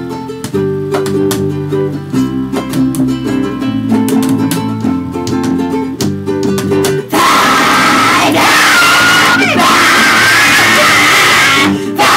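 Acoustic guitar picking a light melody. About seven seconds in it is cut off by a sudden, much louder wall of noise with screaming voices.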